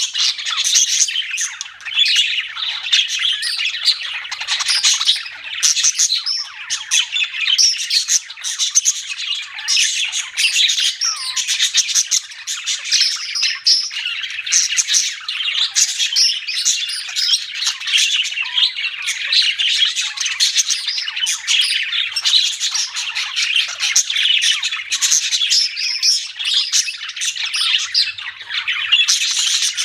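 Budgerigars chirping and chattering without a break, many quick high calls overlapping.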